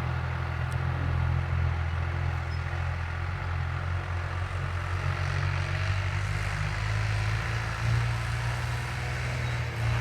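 A 1992 John Deere 52-horsepower tractor's diesel engine running steadily with a low, even drone.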